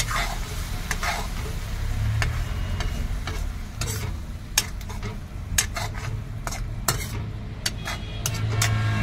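Metal ladle stirring potato curry in a metal kadhai, the wet masala sizzling as it fries after a splash of water. From about four seconds in, the ladle knocks and scrapes against the pan in sharp clicks, over a steady low hum.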